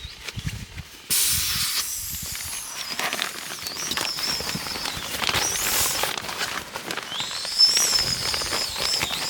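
A steady hiss that starts abruptly about a second in, with a high, wavering whistle over it.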